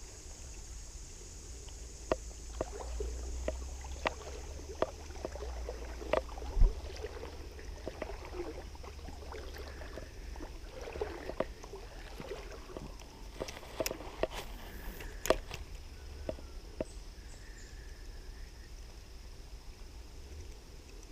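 Creek water sloshing and splashing irregularly, with scattered sharp clicks and knocks throughout.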